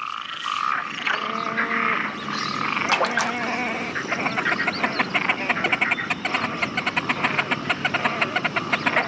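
Chorus of frogs croaking at a pond. From about four seconds in, a fast, rhythmic run of croaks, several a second, fills the sound.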